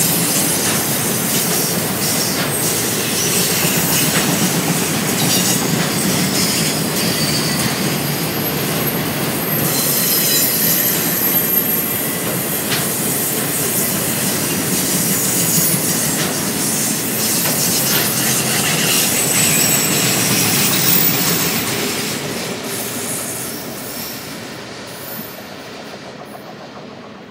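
Train cars rolling past on the rails with a steady rumble, wheel clicks over the rail joints and thin high-pitched wheel squeal. The sound fades steadily over the last several seconds.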